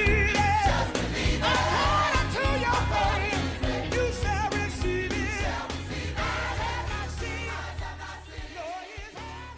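Gospel music with singing voices over a heavy bass line, fading out over the last few seconds.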